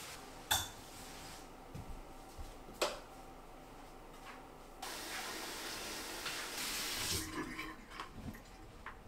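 Household clatter: two sharp clinks, about half a second and about three seconds in, then a steady hiss from about five seconds in for some two and a half seconds, with a few small knocks.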